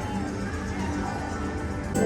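Music playing, with steady held tones.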